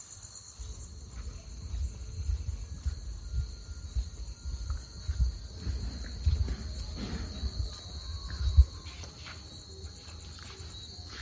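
Crickets chirping in a steady, unbroken high trill at night, under an uneven low rumble, with one thump about eight and a half seconds in.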